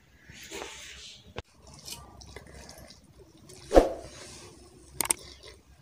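Close-up eating sounds: spicy instant noodles being slurped and chewed with wet mouth noises, a few sharp clicks, and one louder wet sound about two-thirds of the way through.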